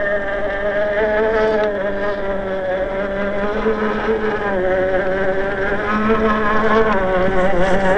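Electric motor and gear drivetrain of a 1/10-scale Axial SCX10 II RC crawler whining as it drives, its pitch wavering up and down with the throttle.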